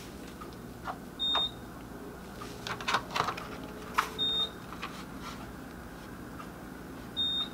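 An electronic beeper sounding three short, high, steady beeps about three seconds apart, with a cluster of clicks and knocks from hands handling something in between.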